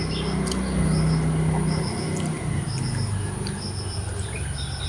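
A small bird chirping over and over in short, evenly spaced high notes, above a steady low hum.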